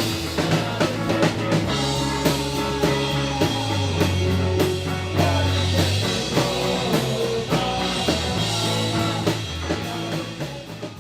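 Rock music: a drum kit keeping a steady beat over a moving bass line.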